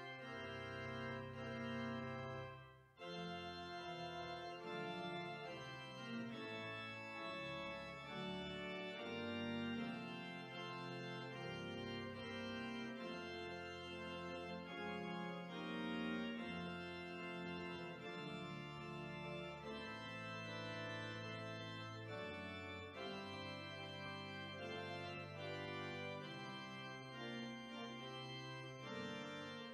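Organ playing slow, sustained chords, with a brief drop in sound about three seconds in.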